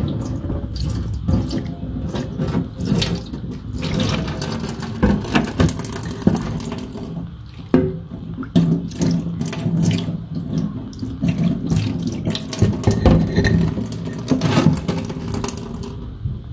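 Tap water running and splashing into stone mortars in a stainless steel sink, with irregular knocks and clatter as the wet mortars are turned and handled.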